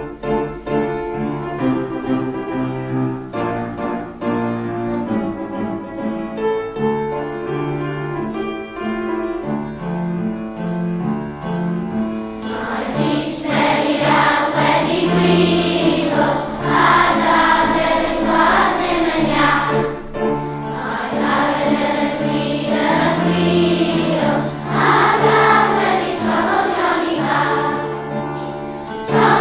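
A piano introduction, then a choir comes in singing with the piano accompaniment about twelve seconds in.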